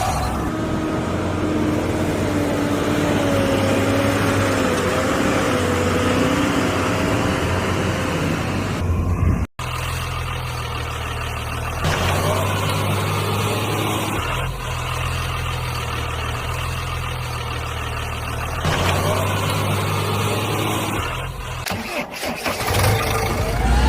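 A vehicle engine running steadily, with an abrupt cut about nine and a half seconds in, after which a similar engine sound carries on.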